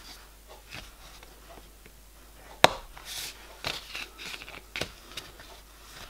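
Light clicks and taps of small graphite-filled PTFE piston rings being handled with the fingers and a small knife blade and set down on a bench mat, with faint rubbing between. One sharper click comes a little over two and a half seconds in, and a few softer ones follow.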